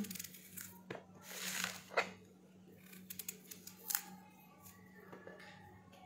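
A kitchen knife cutting and scraping pieces of pumpkin: a few sharp snaps of the blade through the flesh and a short scraping hiss, over a steady low hum.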